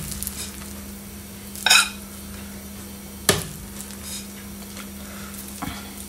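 A metal spoon scooping cooked rice out of a metal saucepan onto a ceramic plate: a few separate scrapes and clinks of spoon on pot and plate, over a steady low hum.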